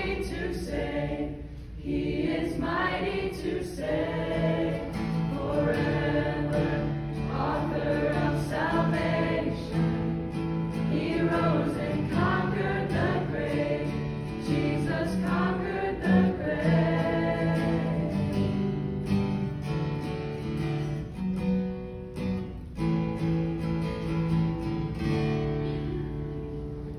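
A small choir singing a song together, with an acoustic guitar accompanying them.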